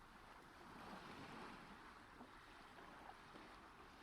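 Faint background recording of sea waves washing on a shore, a soft even hiss that swells gently about a second in.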